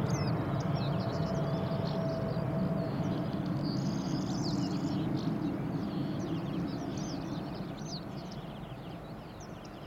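Jet engine rumble of a departing Airbus A320-232 with IAE V2500 turbofans, a low steady noise that fades away as the aircraft climbs off. Birds chirp throughout.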